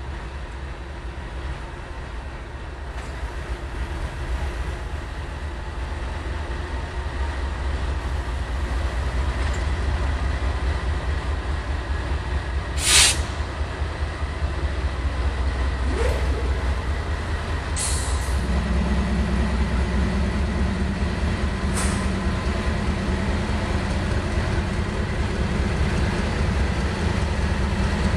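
BNSF GE Dash 9-44CW diesel locomotives running at low speed with a steady low rumble. A short sharp hiss of air comes about halfway through, with fainter hisses a few seconds later, and a low hum comes in about two-thirds of the way through.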